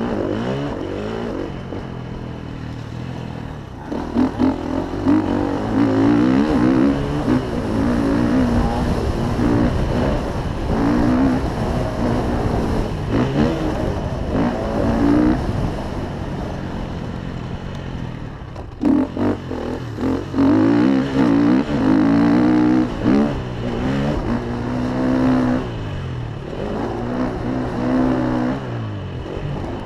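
KTM dirt bike engine at full race pace, revving up and dropping back again and again as the rider works the throttle and shifts gears, with a short easing off about two-thirds of the way through before it pulls hard again.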